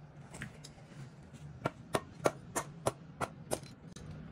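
A quick run of about seven sharp knocks, roughly three a second, in the middle, as the stuck cylinder head of a 110cc engine is worked loose from the cylinder. A faint steady hum lies underneath.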